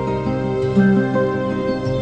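Calm instrumental relaxation music: long held notes that shift in pitch every half second or so, with no voice.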